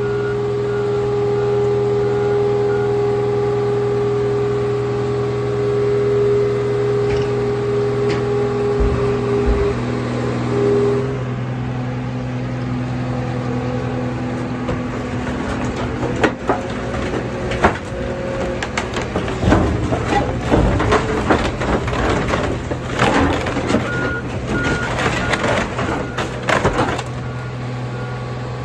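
Heavy machinery runs steadily with a hum and a whine. From about halfway through, repeated cracking and crunching of metal and glass is heard as a 1999 Ford F-150 pickup is set down onto the flattened cars in a car crusher's bed.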